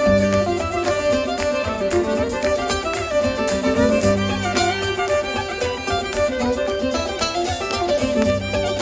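Live folk band playing an instrumental passage with no singing: fiddle carrying the melody over a bass line and drums keeping a steady beat.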